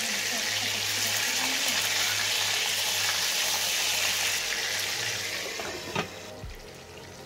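Pieces of boal catfish frying in mustard oil in a kadai: a loud, steady sizzle. About six seconds in, a glass lid is set on the pan with a short knock, and the sizzle then goes quieter and muffled.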